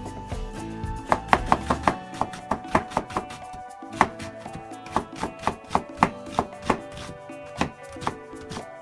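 Knife chopping on a cutting board: a run of sharp strokes, about three a second, starting about a second in. Background music plays underneath.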